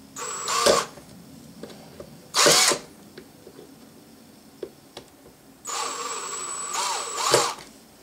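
Cordless hammer drill with a 3/16-inch bit drilling out a rivet on a rifle receiver's trigger-guard plate, run in three bursts of whine: two short ones in the first three seconds and a longer one of about two seconds near the end, as the bit is being started into the rivet.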